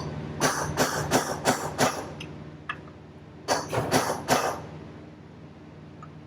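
Hammer striking a steel punch to drive a bearing race out of a baler wheel hub: two quick runs of sharp metallic blows, about three a second, the first of six and the second of four.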